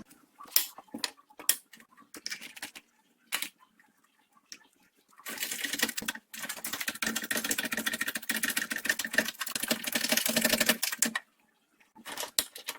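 Shop press at work pressing a rusted-in silent block bushing out of a front suspension control arm: a few clicks and knocks as the part is set up, then about six seconds of a fast, even rattle with a low hum that stops suddenly, followed by a few more clicks.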